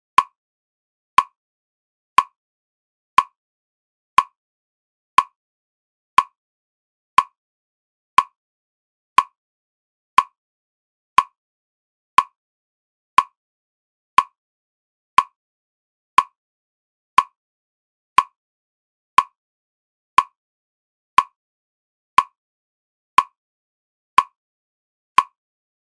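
A short, sharp tick repeating evenly once a second, like a metronome beat, with silence between the ticks. It is the steady pulse that the listener concentrates on.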